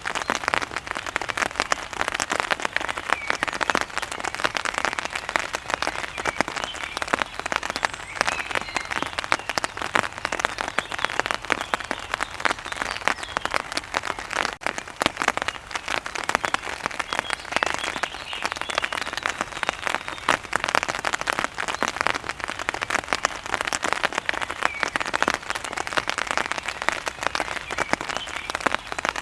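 Steady heavy rain, a dense spatter of countless drops. Now and then a few short bird chirps sound faintly behind it.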